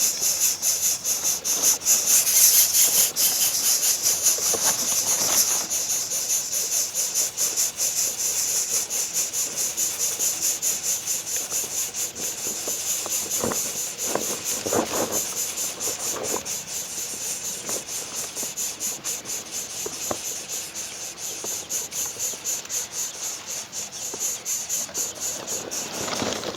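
Steady, high-pitched hiss of an insect chorus, pulsing very fast and evenly. A few short, fainter sounds lower down come about halfway through.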